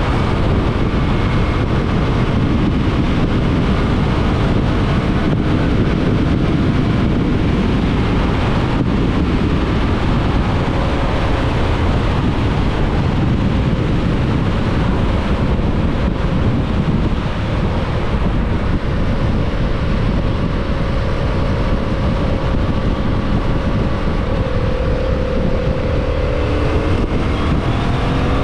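Heavy wind rush over the microphone of a Yamaha MT-07 riding at speed, with the bike's 689 cc parallel-twin engine running steadily underneath. Near the end the engine note rises as the bike accelerates.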